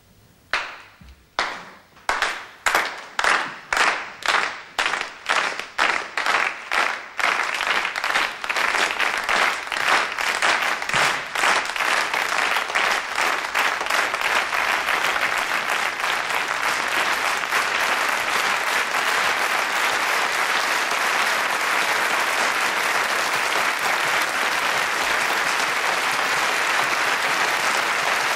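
Crowd applause in a large hall. It starts as separate, evenly spaced handclaps about two or three a second, then quickens and thickens as more hands join, merging after about ten seconds into loud, steady applause.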